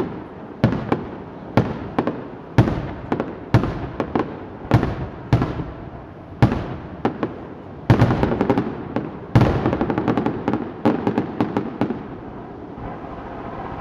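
Aerial fireworks shells bursting in quick succession, a sharp bang every half second to a second, with a denser barrage of crackling reports in the middle that thins out near the end.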